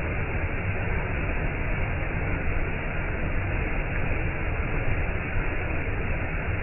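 Clear stream flowing: a steady, unbroken rush of water.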